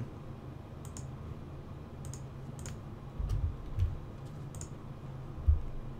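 Computer keyboard keystrokes and mouse clicks, about eight separate sharp clicks spread out over a faint steady low hum, with a few dull low thumps in the middle and near the end.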